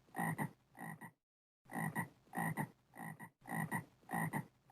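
A frog croaking over and over, about two croaks a second, each croak a quick double pulse. The croaking breaks off into full silence for about half a second, about a second in, then carries on.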